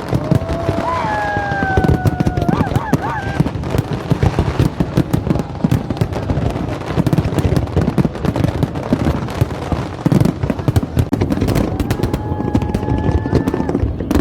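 Fireworks going off in a dense, continuous run of rapid bangs and crackles. Long whistling tones sound about a second in and again near the end.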